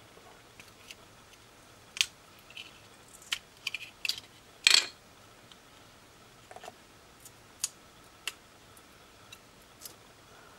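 Plastic case of a third-party Canon LP-E6 camera battery pack clicking and cracking as it is pried apart by hand: scattered sharp snaps, with one louder, longer crackle about halfway through.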